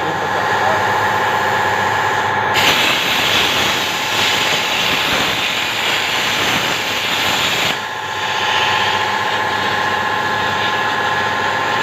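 CNC machine running with a steady whine, joined by a louder hiss from about two and a half seconds in that cuts off suddenly near eight seconds.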